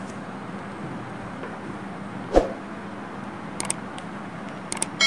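Steady room hiss with a single knock about halfway through, from handling the breadboard. Near the end come two pairs of quick mouse-click sound effects from a subscribe-button animation, and a bell chime starts just as it ends.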